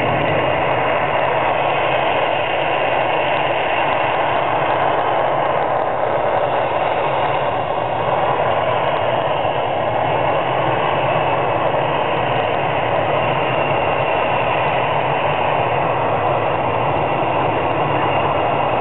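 Engines of a line of four light aircraft running steadily on the ground, a continuous even drone with no change in pitch or level.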